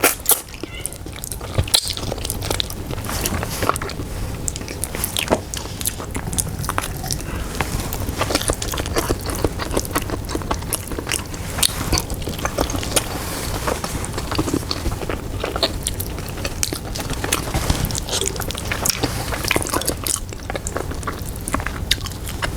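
Close-miked chewing and biting: a person eating soft braised pork hock (pata tim) with rice, a steady run of irregular mouth clicks.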